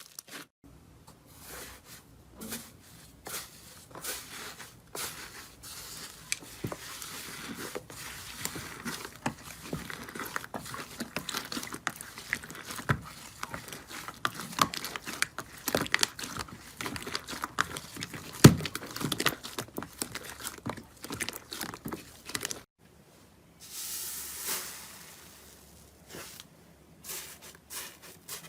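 Slime being squeezed, poked and stretched by hand, giving a dense run of small crackles and sticky pops. There is a brief break about 23 seconds in, and then the handling sounds resume.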